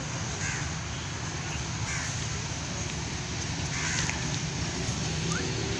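Crows cawing a few times, short harsh calls a second or two apart, over a steady low background rumble.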